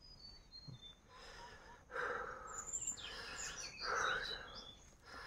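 Outdoor ambience with small birds chirping in short high calls. Two louder, rougher sounds come about two and four seconds in.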